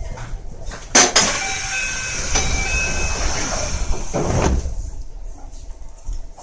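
Keio 1000 series train's sliding doors opening at a station stop: a sharp clunk about a second in, then a hissing rush with a few short steady tones that fades after about four seconds.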